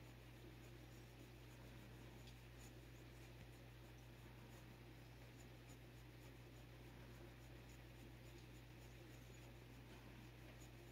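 Near silence: a steady low hum of room tone, with faint scratchy rubbing of a thick leather glove stroking a cat's fur.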